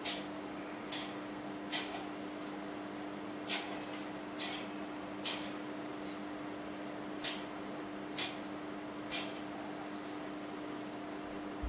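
Metal censer (thurible) swung on its chains, clinking in three groups of three strokes a little under a second apart, the pattern of a ritual incensation. A steady low hum runs underneath.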